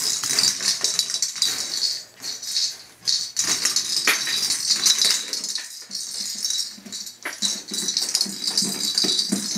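Yorkie Poo puppies at play, with irregular rattling and clicking throughout.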